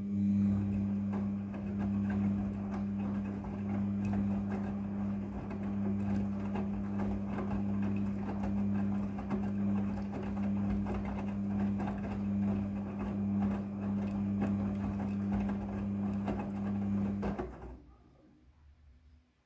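Midea front-loading washing machine running mid-cycle: a steady low hum with dense sloshing and clicking over it, starting abruptly and cutting off about seventeen seconds in.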